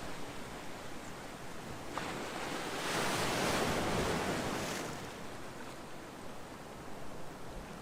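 Calm sea waves washing in, one wave swelling about three seconds in and then fading away.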